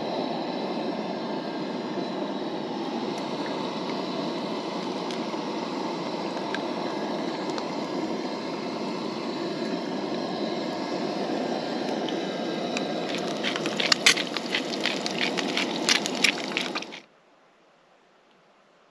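Camp stove burner running with a steady rushing sound under a frying pan. About thirteen seconds in, eggs go into the hot oil and crackle and spit for a few seconds, then the sound cuts off suddenly.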